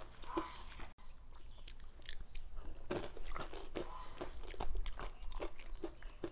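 Crunchy eating sounds: plastic spoons clicking and scraping in cups as yogurt is stirred with crunchy cereal and dried fruit, mixed with chewing. Short, irregular clicks and crunches, with a brief break about a second in.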